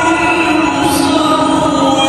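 A single voice chanting in long held, slowly wavering notes, in the melodic style of Islamic recitation.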